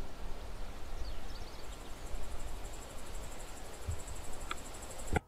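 Faint outdoor ambience with a low rumble, a few short high chirps about a second in, and a rapid, even, high-pitched pulsing from about two seconds in, cutting off just before the end.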